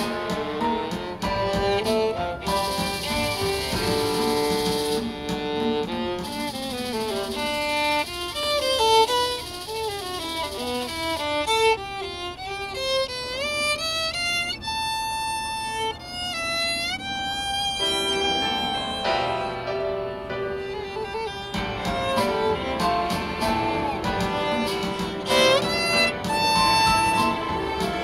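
Solo viola played with the bow: a melodic line with quick runs of notes, high sliding notes in the middle and longer held notes at either end.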